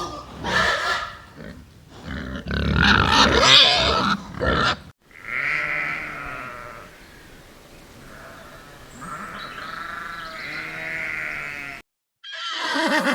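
Sheep bleating: several wavering calls, preceded by about five seconds of louder, rougher animal calls that cut off abruptly. Near the end a horse starts whinnying after a brief silence.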